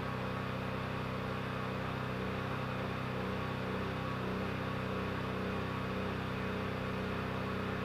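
PowerMax XP8500E portable generator running as a steady low drone under heavy load from the battery chargers, starting to struggle as they pull more current.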